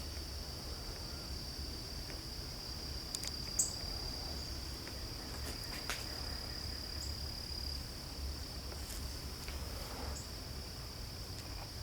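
Insects trilling steadily in one unbroken high-pitched drone, with a few sharp clicks or snaps over it, the loudest about three and a half seconds in, and a low rumble underneath.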